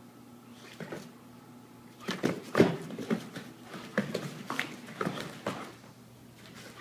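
Dogs play-fighting. After a quiet start, about two seconds in comes a flurry of short, sharp dog noises and scuffling lasting a few seconds.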